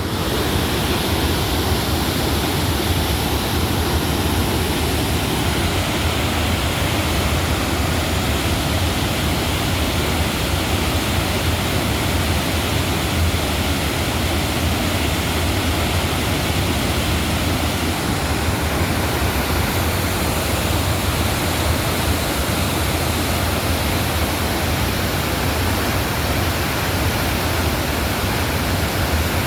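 Crescent Falls on the Bighorn River: the steady, unbroken rush of a large waterfall pouring into fast-flowing water.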